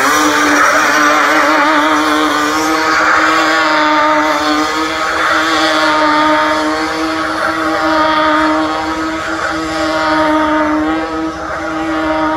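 Sport quad's engine held at high, steady revs during a stunt, its pitch wavering only slightly.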